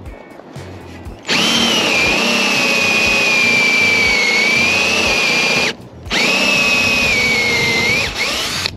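Ryobi cordless drill with a step drill bit boring a hole through a caravan roof. It runs in two bursts of about four and two and a half seconds with a short stop between, and the motor's whine drops a little in pitch during each run.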